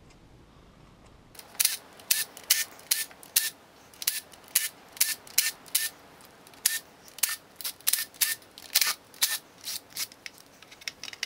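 A run of sharp, irregular clicks, about two a second, starting after a second or so of quiet: tool work on valve-cover bolts with a cordless drill-driver.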